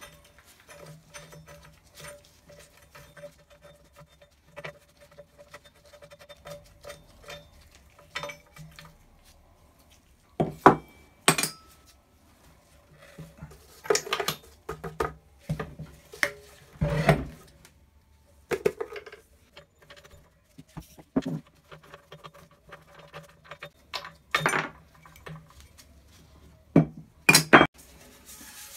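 Metal clinking and knocking as the cast tool rests and wheel guards of an early-1960s Black & Decker bench grinder are taken off, handled and set down on a wooden workbench: many light clicks and a handful of louder knocks.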